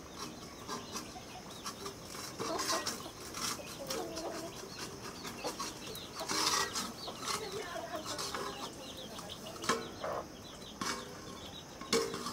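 Metal pots and steel plates clinking and scraping as they are washed by hand, in scattered sharp knocks, with chickens clucking now and then.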